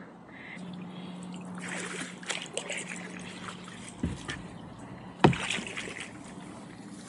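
Kayak being paddled along: soft paddle strokes with water dripping and trickling off the blades, and a sharp knock about five seconds in, with a smaller one just before it. A steady low hum runs underneath from about half a second in.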